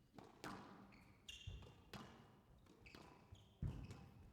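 Squash rally: the ball struck by racquets and smacking off the court walls in a series of sharp hits, the loudest about three and a half seconds in, with short high squeaks of shoes on the court floor between them.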